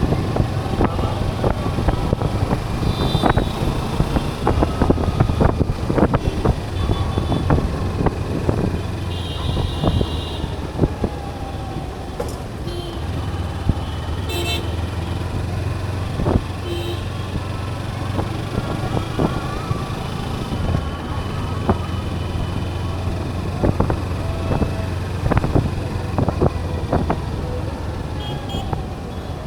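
Kawasaki Ninja 300's parallel-twin engine and road noise running steadily through dense city traffic, with other vehicles' horns honking in short blasts several times, about 3 s in, around 9–10 s, near 16 s and again near the end.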